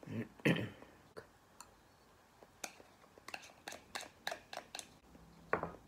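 Metal spoon clicking and scraping against a small plastic cup, a quick run of about a dozen sharp clicks in the middle. Brief mouth sounds near the start and near the end, the loudest about half a second in.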